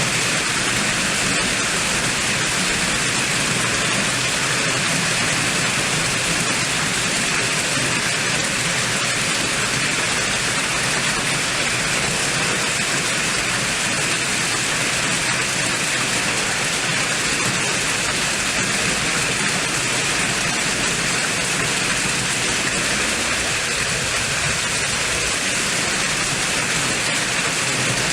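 Heavy rain in a storm with strong wind: a steady, loud rush of noise that does not let up.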